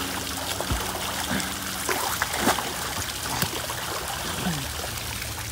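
Pool water splashing as a swimmer strokes through it, over the steady rush of water from a rock waterfall running into the pool.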